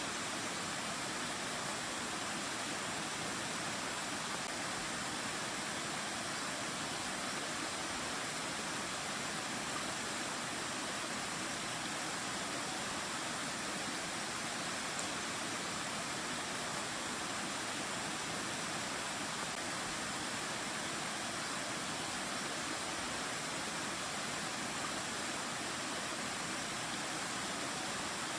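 Mountain-valley stream water flowing and rushing over rocks, a steady even rush of water.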